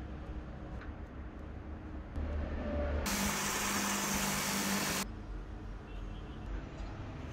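A bench grinder's spinning wheel working a small metal part held in pliers: a loud, even hiss over a steady motor tone that starts about three seconds in and cuts off abruptly about two seconds later. A low steady hum lies under the rest.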